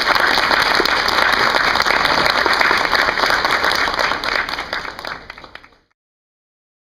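Applause from the panel and audience, many hands clapping steadily, fading away about five seconds in.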